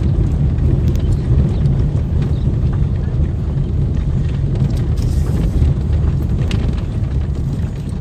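Car driving slowly over an old stone-paved road, heard from inside the cabin: a steady low rumble from the tyres on the paving stones, with scattered small knocks.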